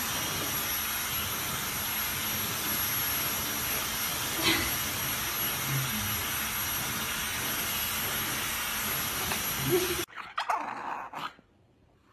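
Steady loud rushing noise of a hair dryer blowing on a towel-wrapped pug puppy, with a few brief puppy whimpers; the rushing cuts off suddenly about ten seconds in.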